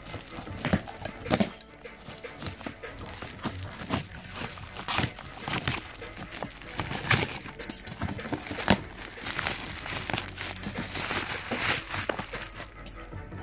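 Plastic and bubble-wrap packaging crinkling and rustling as it is pulled off a shoebox by hand, in irregular crackles of varying loudness.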